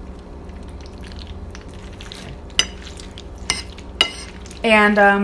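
Metal fork clinking and scraping against a plate of mac and cheese, with a few sharp clinks about halfway through. Near the end there is a short, steady hummed voice.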